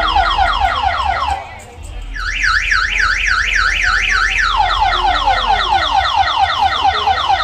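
A siren-like electronic alarm effect played very loud through a large outdoor sound-system rig, over a steady bass hum. It warbles rapidly up and down, about three to four times a second, breaks off briefly about a second and a half in, then comes back and turns into a run of quick falling sweeps.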